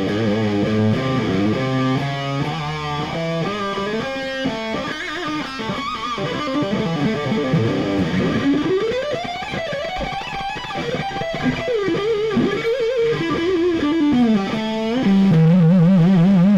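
Electric-guitar rock music, with notes sliding up and down in pitch, ending on a louder held, wavering note for the last second or so.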